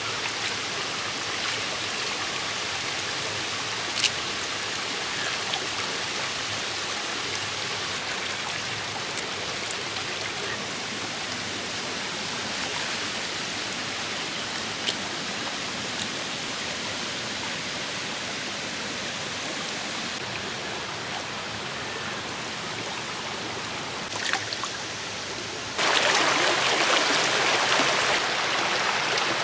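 Shallow stream rushing over rocks: a steady hiss of flowing water that grows louder for about two seconds near the end. A few brief sharp clicks stand out over it.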